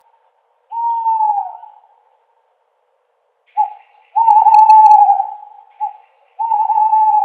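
An owl hooting: one hoot that sags in pitch at the end, a pause of about two seconds, then a run of short and long hoots at a steady pitch.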